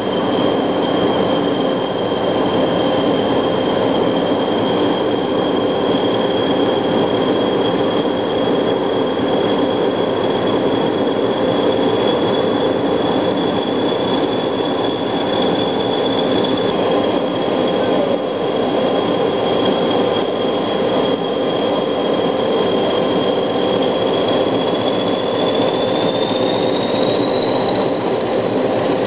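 A Class 20 diesel locomotive's English Electric 8SVT engine working steadily at the head of a moving train, heard close by over the rumble of wheels on rail. A steady high whistle runs through it and climbs in pitch near the end.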